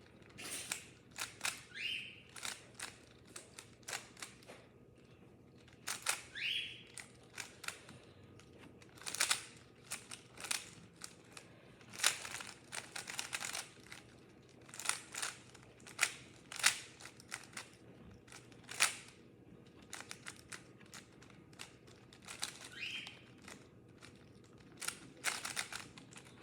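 Maglev speed cube being solved: its layers click and clack as they are turned in quick runs of moves, with short pauses between runs.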